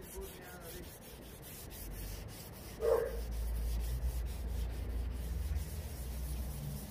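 Rubber flatting block with fine wet-and-dry paper rubbed quickly back and forth over a primed van panel, wet-flatting the guide coat, in an even scrubbing rhythm. A single short call about three seconds in is the loudest moment.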